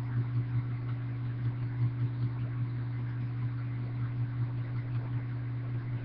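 Steady low hum, like a fan or small motor running, with a slight flutter several times a second.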